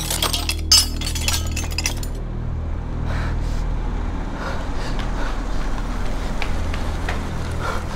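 Metal tools and parts clinking and clattering as hands rummage through them, with one sharp clank about a second in. After about two seconds the clatter stops, leaving a low steady hum and a few faint knocks.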